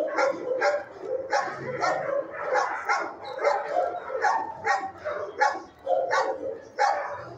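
Several dogs barking in a shelter kennel block, the barks coming thick and overlapping, two to three a second.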